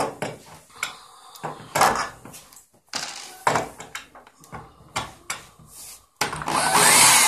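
Clicks and knocks of metal parts and screws being handled on the bed frame, then about six seconds in a power drill starts and runs steadily, backing out a small screw from a metal plate.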